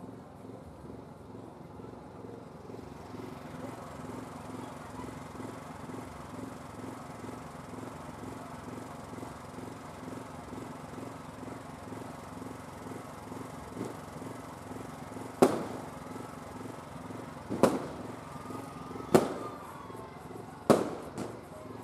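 Fireworks going off: a faint pop, then four loud, sharp bangs about one and a half to two seconds apart in the last third, over a steady low hum.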